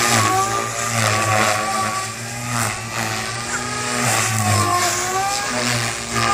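Goblin 380 electric RC helicopter in flight: the brushless motor's whine and the rotor blades' chop. The pitch rises and falls as the head speed and blade load change with each manoeuvre.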